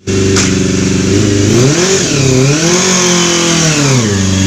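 Yamaha FZR250's inline-four engine idling, then revved twice: a short rise and fall about one and a half seconds in, then a longer rev that settles back to idle near the end.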